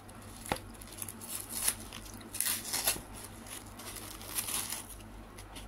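Plastic cling film crinkling and crackling as it is pulled and peeled off a foam food tray, in short, irregular spells.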